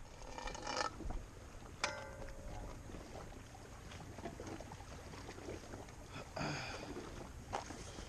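Handling noises aboard a small boat: a few light knocks and a short, ringing metallic clink about two seconds in, over a low steady hum.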